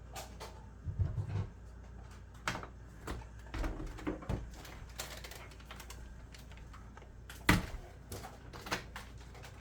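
Scattered clicks and knocks of hard objects being handled and set down, with one loud knock about seven and a half seconds in; no vacuum motor is running.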